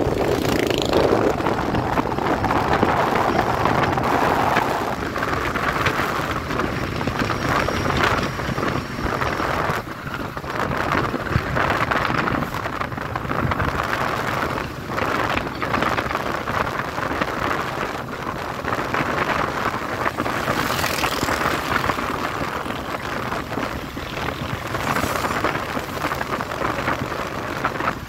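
Wind rushing over the microphone of a moving motorcycle, with the engine running and road noise underneath, rising and falling a little as the ride goes on.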